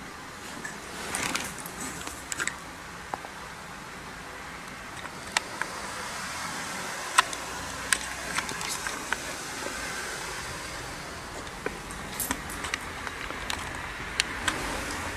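Scattered sharp clicks and taps over a steady hiss, with a short rustling burst about a second in.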